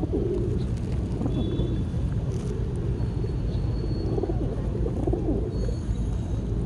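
Pigeons cooing in repeated short phrases over a steady low rumble, with a few faint high chirps.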